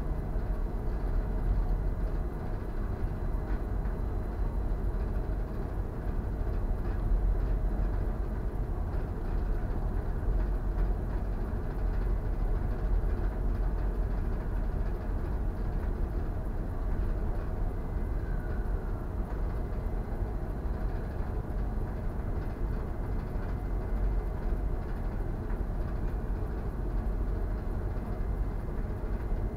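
Steady low rumble of a bulk carrier under way, heaviest in the deep bass and fluttering slightly as wind works on the microphone.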